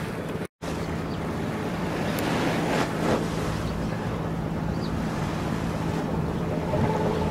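Steady low drone of a small coastal cargo ship's engine as it passes, over a haze of water wash and wind on the microphone. The sound drops out for an instant about half a second in.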